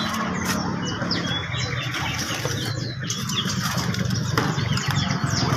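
Many small caged songbirds chirping in quick overlapping calls, with some wing-fluttering, over a steady low hum.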